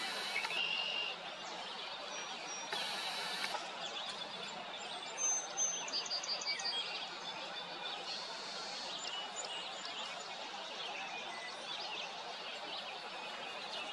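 Outdoor ambience of small birds chirping now and then over a steady background hiss, with a quick run of high chirps about five to seven seconds in.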